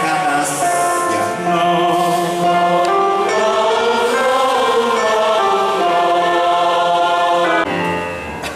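Student choir singing sustained chords in several voice parts, changing abruptly near the end.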